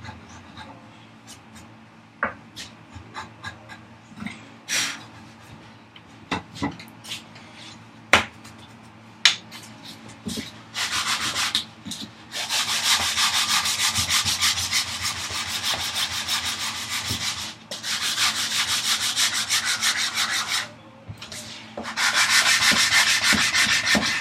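Wooden vise chop being abraded by hand with rapid back-and-forth strokes, taking a little off an edge so it sits flush. Light scattered knocks and taps come first; the strokes start about ten seconds in and run in long spells with brief pauses.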